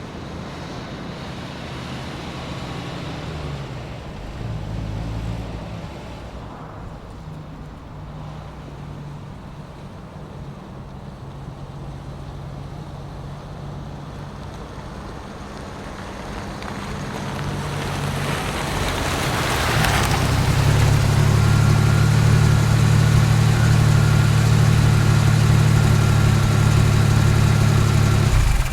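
Car engine running as the car approaches, growing steadily louder as it comes close. It comes to a halt and idles loud and steady, then the motor is switched off and the sound cuts off suddenly at the very end.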